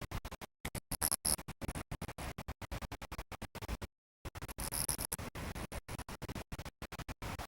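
A stuttering, rapidly chopped noisy sound that cuts on and off several times a second, with a gap of about half a second near the middle, in the manner of a scratching effect.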